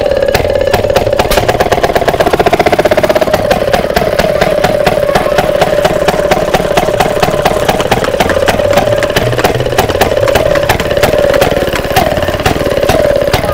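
Small single-cylinder two-stroke engine of an antique garden tractor running under way, firing in a rapid stream of exhaust pops over a steady mid-pitched hum. The firing comes faster for a moment about two seconds in.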